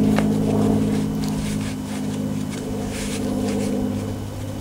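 An engine running steadily at an even idle, a constant hum, with scattered short rustles and clicks over it.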